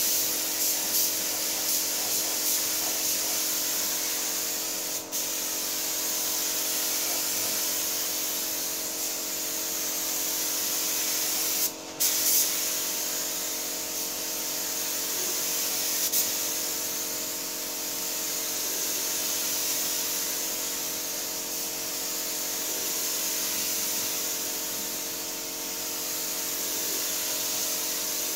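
Gravity-feed paint spray gun hissing steadily as paint is sprayed onto a car's body panels. The hiss swells and fades with each pass and drops out briefly twice, about 5 and 12 seconds in, over a steady low hum.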